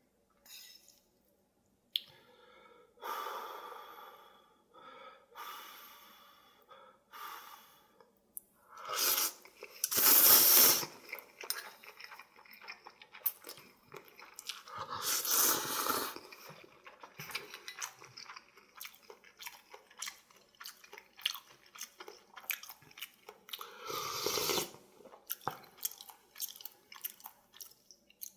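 A person eating instant ramyun noodles, with several long slurps. The loudest comes about ten seconds in. Between the slurps there is wet chewing with many small clicks.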